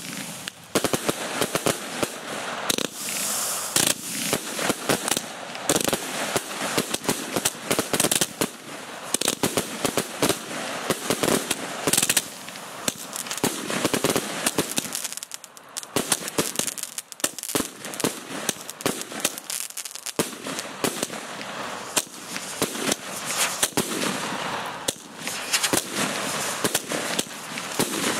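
Fireworks display: a dense, irregular run of sharp bangs from shells bursting, with crackling between them and a short lull about halfway through.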